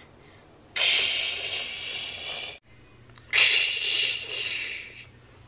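Two long, breathy hissing blows, each about two seconds, made with the mouth to imitate a storm's wind and thunder.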